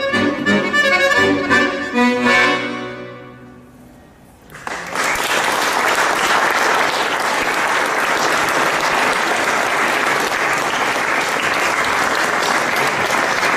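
Free-bass chromatic accordion playing the closing notes of a piece, ending on a held chord that fades out about four seconds in. Then an audience bursts into steady applause that continues to the end.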